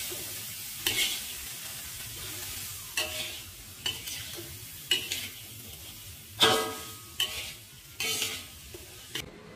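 Metal spatula scraping and knocking against a wok, stirring dried shrimp and petai beans, over a faint sizzle from the hot pan. About eight separate scrapes; the loudest, about six and a half seconds in, carries a brief metallic ring.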